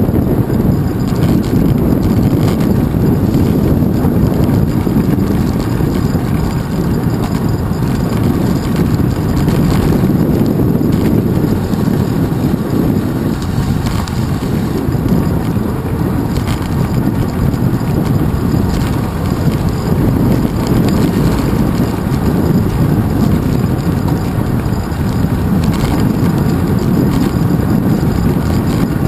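Wind buffeting the microphone of a GoPro Hero 2 mounted on a moving bicycle's handlebars: a steady, low rumbling roar, with road noise from the ride mixed in and a few faint clicks.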